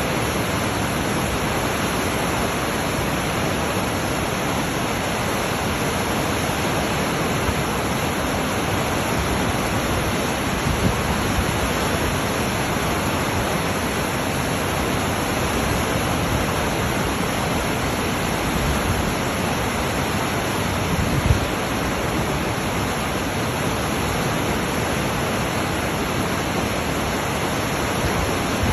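Steady rushing roar of whitewater, with a brief low thump about two-thirds of the way through.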